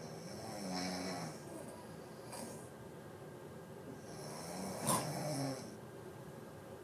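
A sleeping person snoring: two long snores, one about a second in and one about five seconds in, the second with a sharp snort at its peak, and a breath between them.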